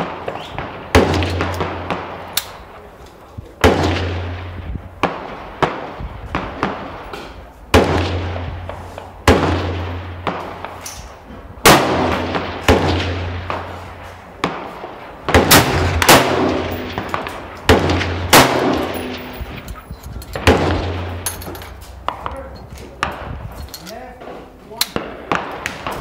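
Gunshots going off repeatedly and at irregular intervals on an outdoor firing range, a sharp report every second or two, each trailing off in a short echo.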